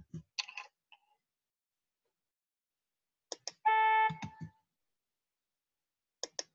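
Computer mouse clicks, and about three and a half seconds in a short electronic note at A4, played back by the Sibelius notation program as a note in the score is selected.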